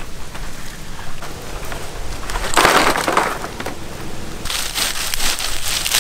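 Dry palm leaves crunching and crackling as a bundle of them is handled and laid onto hot embers, with a loud crunch about three seconds in and a longer spell of crackling near the end.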